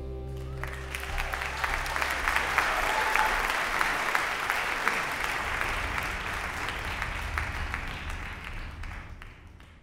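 Audience applauding as the band's final chord rings out and dies away. The applause fades out near the end.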